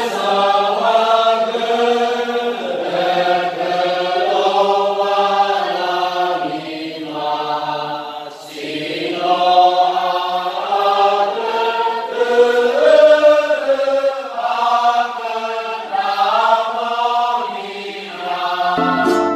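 A congregation singing a hymn together, a group of voices holding long notes.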